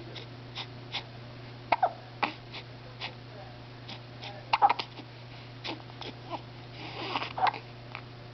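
A person hiccupping repeatedly, short sharp hiccups at irregular intervals, the loudest about two seconds in, halfway through and near the end.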